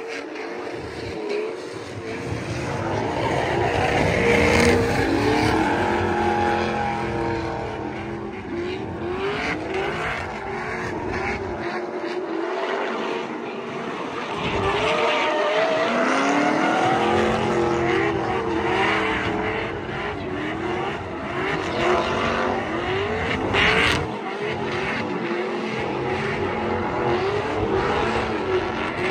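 Car engines revving hard again and again, their pitch rising and falling repeatedly, over a steady noisy haze. A single sharp crack comes about three-quarters of the way through.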